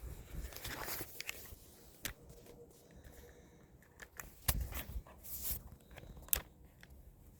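Handling noise from a phone and gimbal being handled close to the microphone: brief rustling with scattered clicks and knocks, the loudest two knocks about four and a half and six seconds in.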